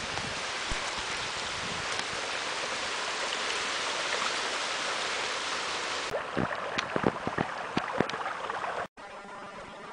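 Water rushing steadily out of a concrete culvert and over stones into a stream. After about six seconds it turns duller, with a few sharp clicks, and near the end it cuts off abruptly.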